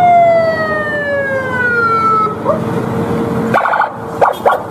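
Police car siren sounding, its wail sliding slowly down in pitch for over two seconds, then a brief upward blip and a held low tone. Near the end come a few short sharp bursts, over a steady low rumble of road traffic.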